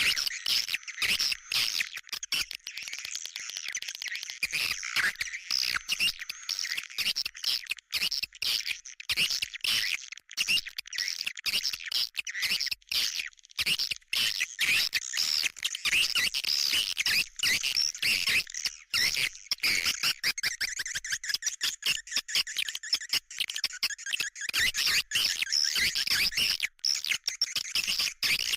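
Swiftlet calls: dense, unbroken twittering and rapid chirping, a lure sound made to attract swiftlets.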